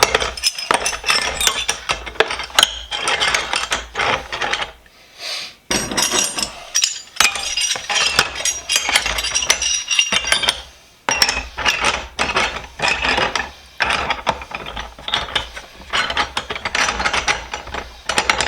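Steel wrenches clinking and clattering against one another as they are set, one after another, into a container of Deox C rust remover. There are short lulls about five and eleven seconds in.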